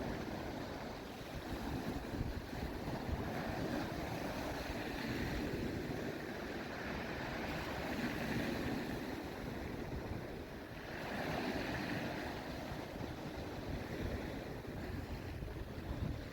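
Strong wind blowing over the microphone: a steady rushing noise with gusty low buffeting that rises and falls.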